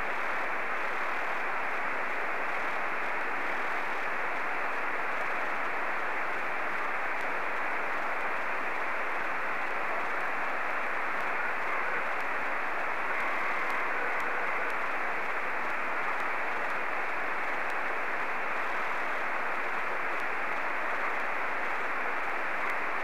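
Steady hiss from a Yaesu FT-897 receiver in single-sideband mode, tuned to the FO-29 satellite's 70 cm downlink through a home-made quadrifilar helix antenna. The hiss is cut off sharply at the top by the receiver's filter, and no clear signal stands out.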